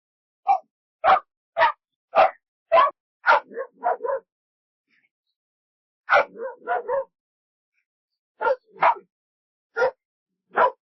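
A dog barking in short, separate barks, roughly two a second at first. It then gives a quick run of smaller barks, falls silent for about two seconds, lets out another quick cluster, and ends with a few spaced single barks.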